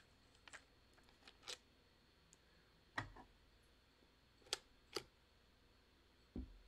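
Faint, scattered clicks and light knocks, about half a dozen, from the plastic housing and chain-tensioner knob of a cordless 6-inch mini chainsaw being unscrewed and handled by hand, with a duller knock near the end.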